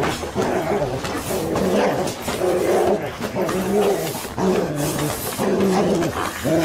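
A dog growling in repeated bouts as it grapples with and bites at a man on the ground.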